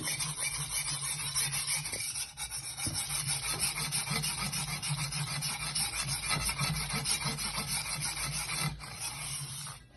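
Steel blade of a Chinese cleaver being rubbed back and forth on a wet whetstone under hand pressure: a rapid series of gritty scraping strokes that stops just before the end.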